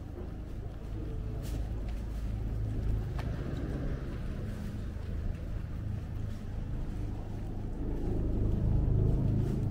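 Low engine rumble of a motor vehicle close by, growing louder about three seconds in and again near the end.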